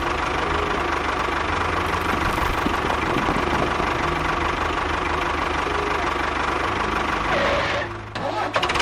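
An engine idling with a steady low chugging. It dips briefly near the end and then carries on as before.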